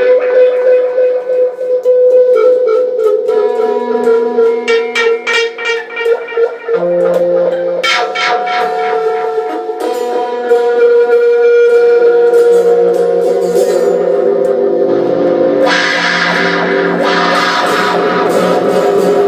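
Guitar music: quick picked notes over a held tone, changing to a fuller, noisier sound about three-quarters of the way through.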